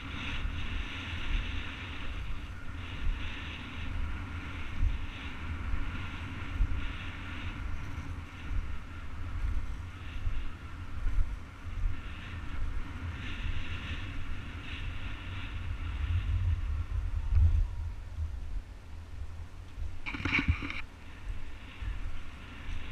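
Skate wheels rolling steadily on asphalt, with wind buffeting the camera microphone as a low rumble. About twenty seconds in there is a brief louder rattle.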